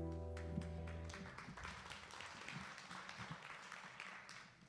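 The live worship band's final chord rings on and fades out during the first second. Faint room noise with scattered small clicks follows.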